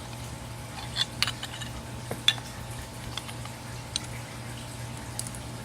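An 11/16 wrench working the nut on an air horn solenoid: a handful of light, sharp metallic clinks, spaced irregularly, over a steady low hum.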